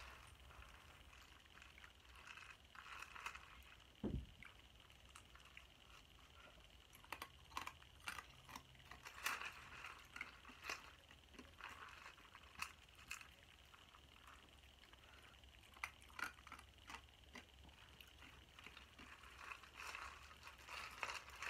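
Faint stirring in a foam cup of liquid: a plastic straw scraping and clicking against the cup's inside in short irregular strokes, with one dull bump about four seconds in.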